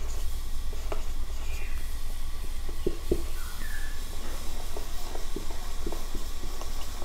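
Marker pen writing on a whiteboard: short scratches and taps, with a couple of brief squeaks. A steady low hum runs underneath.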